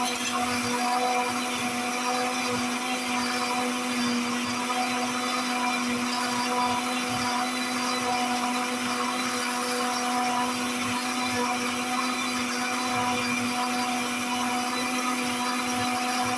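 Geepas countertop blender running at a steady speed with a constant motor hum. It is blending strawberries, banana, apple, milk and ice, and the mixture is already a smooth juice.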